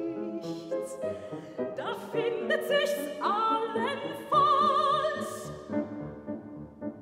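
Soprano singing a German art song with grand piano accompaniment. She glides up to a high note held with vibrato about four seconds in, and near the end the piano carries on alone.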